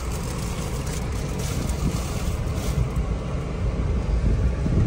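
Wind buffeting the microphone on a moving road vehicle, over a steady low rumble of engine and tyres; the noise grows gradually louder.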